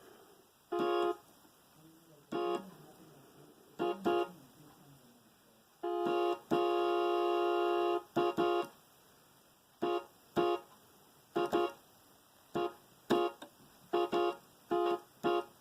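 Electronic keyboard sounding a chord in train-horn-style blasts, imitating a locomotive horn that sounds like an Amtrak horn. There are about twenty short blasts, several in quick pairs, and one held for about a second and a half midway.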